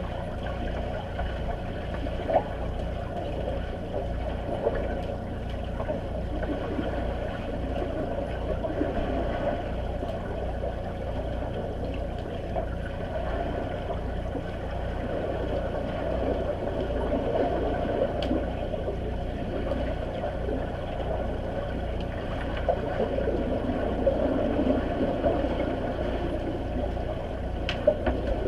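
Underwater sound of players swimming in a pool: a muffled churning rush of kicking and splashing, heard through the water, over a steady low pulsing hum. There are a few short faint knocks, about two seconds in and near the end.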